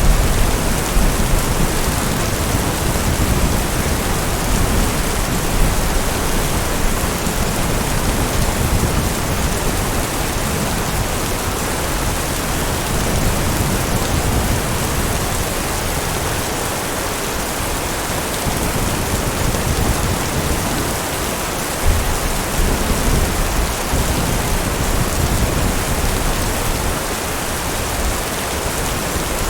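Heavy, steady rain with low thunder rumbling beneath it, strongest near the start and dying down through the middle, with another brief rumble later on.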